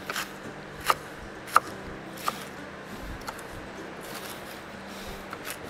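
Kitchen knife chopping spring onions on a cutting board: four sharp knocks about three-quarters of a second apart, then a few scattered lighter taps.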